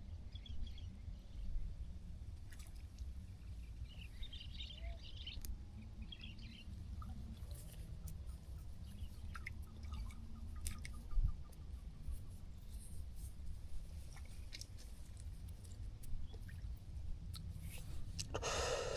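Quiet outdoor ambience at a fishing spot: a low rumble with scattered small clicks and a few faint bird chirps about four to six seconds in, and a brief rustle near the end.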